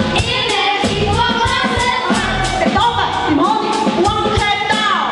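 A song sung over a steady beat, performed live in a musical-theatre show.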